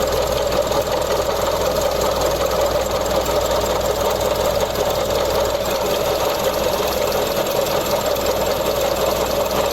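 Mazda CX-30 engine running, heard up close at the accessory-belt tensioner: a steady, crispy, gritty noise from the tensioner pulley, which the mechanic takes for a failing tensioner.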